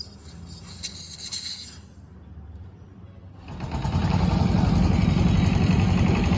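A hiss for about the first two seconds, a short lull, then an engine starts a little past halfway and runs with a steady low rumble.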